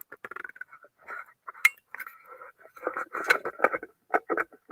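Irregular clicks, taps and light clattering of equipment being handled and adjusted, with one sharp click about one and a half seconds in and a busier run of rattles near the end.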